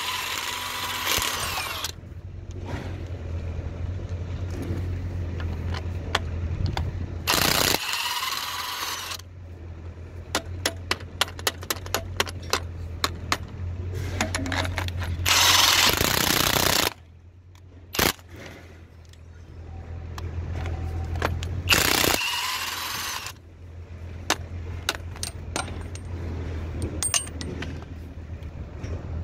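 Parkside PASSP 20 Li A1 cordless impact wrench hammering in four short bursts of one to two seconds, breaking loose and spinning off seized, rusted wheel-hub nuts. Between bursts there are runs of rapid light clicks, over a steady low hum.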